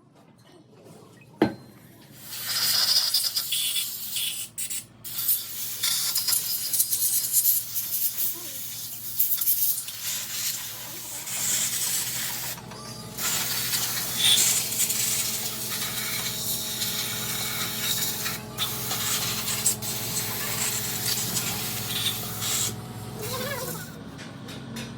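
A loud spraying hiss, stopping and starting with short breaks, after a single sharp click near the start; a steady low machine hum joins about halfway through.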